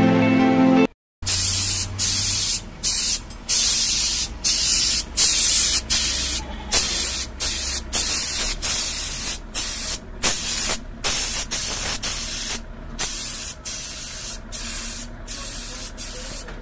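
High-pressure water jet spraying a motorcycle, a loud hiss that starts and stops many times in short bursts as the trigger is worked, with a low machine hum underneath. About the first second is background music, cut off just before the spraying begins.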